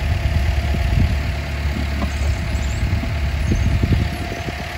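Wind buffeting the microphone: a continuous low rumble that swells in irregular gusts, easing a little near the end.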